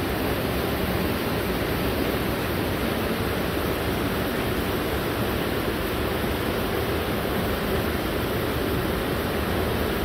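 Waterfall pouring: a steady, unbroken rush of water, running heavy with storm water.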